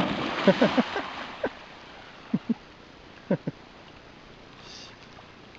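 A dog jumping into a river with a big splash, the splashing loud for about a second and then fading into quieter water sounds as it swims off. A few short voice sounds come in the first half.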